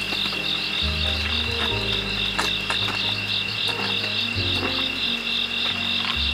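Crickets calling steadily: a continuous high trill with a pulsing chirp just above it.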